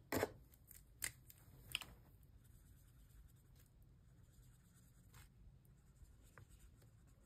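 Faint rustling and crinkling of paper banknotes and envelopes being handled. There are a few soft strokes in the first two seconds and a couple more near the end.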